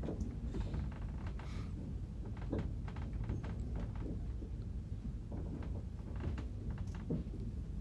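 Train carriage running along the track, heard from inside: a steady low rumble with irregular knocks and rattles.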